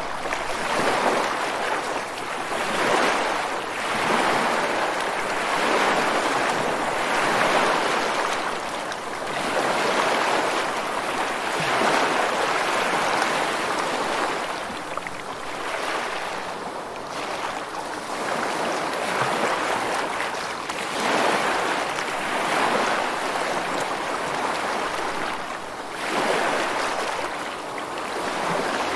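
Ocean surf: waves breaking and washing up a shore, a rush of water that swells and falls away every two to four seconds.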